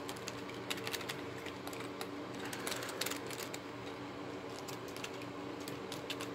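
Irregular light clicks and taps of a small toy monster truck being turned over and handled in the hands, its wheels and body knocking together, over a faint steady hum.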